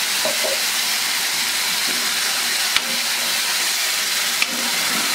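Ground chutney thinned with a little water sizzling steadily in a hot kadai over its tempering as it is stirred with a spoon. Two sharp clicks of the spoon against the pan, about three seconds in and again a second and a half later.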